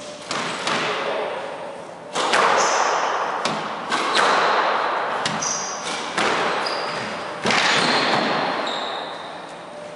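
Squash rally: the ball smacking off racquets and the walls about every one to two seconds, each hit ringing on in the echoing court, with sneakers squeaking briefly on the wooden floor between shots.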